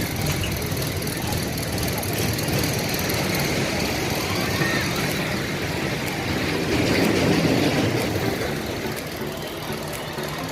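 Steady rumble of a moving vehicle, growing louder for a moment about seven seconds in.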